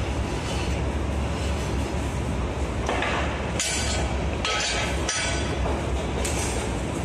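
Steady hiss and hum of a cutting torch cutting a circle in steel plate. Between about three and five seconds in come a few sharp metallic clinks of metal knocking on the steel grate of the cutting table.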